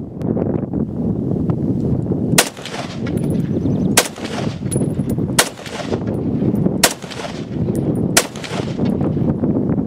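Five semi-automatic rifle shots from a Tokarev SVT-40 in 7.62×54R, fired about one and a half seconds apart, starting a little over two seconds in. A steady low rumble, most likely wind on the microphone, runs under the shots.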